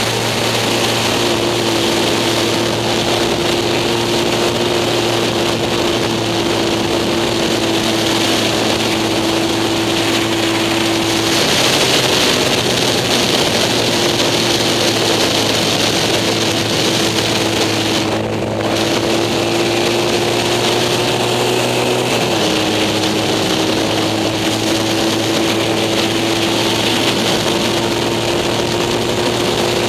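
Racing sidecar outfit's engine running hard at high revs, heard onboard, with a steady engine note whose pitch breaks and shifts twice, about 11 and 22 seconds in. A strong rush of wind noise runs under it.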